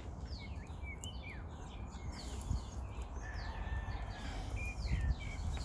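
Several birds chirping with short, quick down-sweeping calls, over a steady low background rumble.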